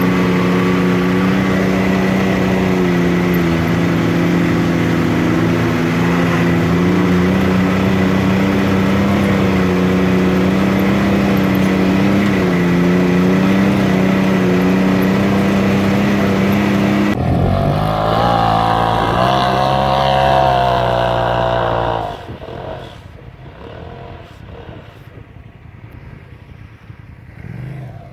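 Can-Am Maverick X3 side-by-side engine running at a steady pitch. About seventeen seconds in the sound changes abruptly to the engine revving up and down. At about twenty-two seconds it drops to a much quieter, rougher sound.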